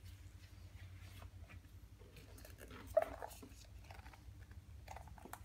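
Quiet handling of a hardcover photobook and a paper envelope: faint rustles and taps as the envelope slides out of its pocket and the book is shut, over a steady low hum. One short, sharper sound stands out about three seconds in.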